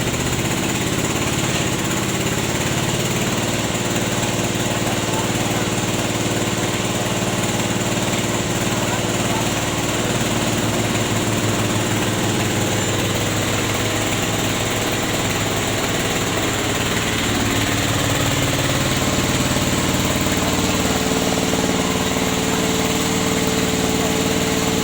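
Small engine running steadily, driving a rubber sheet press machine; its pitch shifts slightly partway through, and a higher steady tone joins it near the end.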